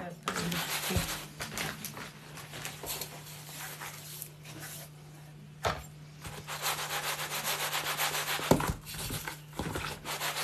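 Dry boilie base mix being rubbed through a sieve in repeated gritty scraping strokes, sifting out the coarse grains, with a couple of sharp knocks along the way.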